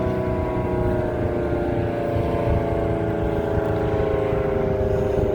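ACA Allertor 125 outdoor warning siren sounding a steady tone whose pitch slowly falls, as the rotor winds down at the end of the test. A low rumble runs underneath.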